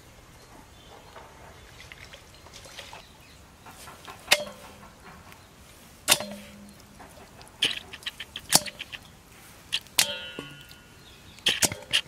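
Stainless steel bowl clinking: a series of sharp knocks, each ringing briefly, spaced a second or two apart and coming closer together near the end.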